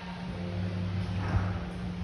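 Steady low hum of the indoor climbing gym's background, with a brief soft rustle about a second in.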